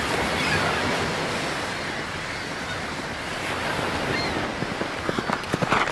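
A steady rushing noise, with a few short knocks about five seconds in.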